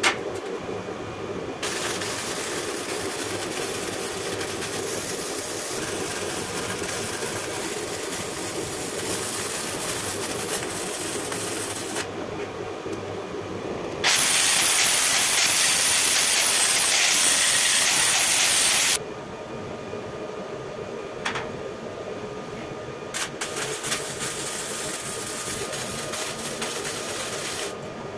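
Semi-automatic (MIG) welding arc hissing while tacking a steel square-tube frame, in three long runs that start and stop abruptly, the middle one loudest.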